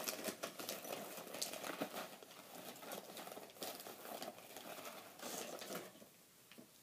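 A small dog crunching and chewing crackers: a dense run of quick crackly snaps that fades out about six seconds in.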